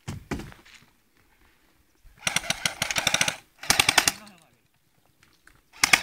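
Airsoft rifle firing on full auto: a rapid burst of about a second, a shorter second burst straight after, and another short burst near the end.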